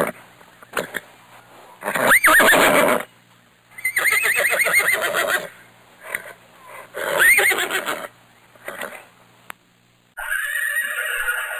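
A horse neighs loudly three times, about two, four and seven seconds in. Each whinny lasts a second or more and its pitch rises and falls. Short, quieter sounds come between the calls.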